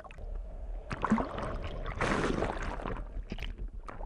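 Water heard underwater through an action camera's housing as the diver swims: a rushing, bubbling wash with many scattered sharp clicks, and a louder hiss of water about two seconds in that lasts about a second.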